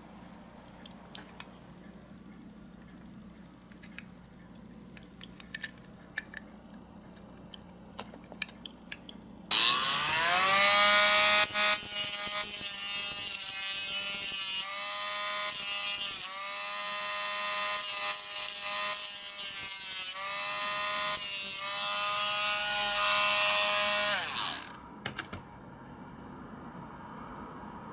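A small electric rotary tool with a cut-off disc whines up to speed about a third of the way in, runs at a high steady pitch with a few short, louder, harsher spells, and stops abruptly near the end. Before it starts there are only faint clicks of small parts being handled.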